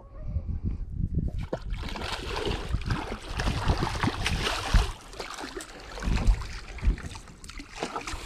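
A hooked lake trout thrashing and splashing at the water's surface right beside the boat, the splashing heaviest from about two seconds in to about five seconds, then easing off. Scattered low thumps run through it.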